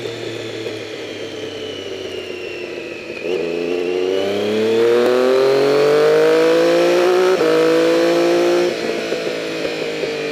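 Triumph Daytona 675's inline three-cylinder engine running steadily at low revs, then opening up about three seconds in with the revs climbing. There is a quick upshift about seven seconds in, and near the end the level and pitch drop as the revs fall.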